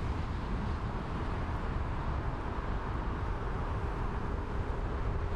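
Steady low rumble of distant jet aircraft engines in airport background noise, with a faint steady hum coming in about halfway through.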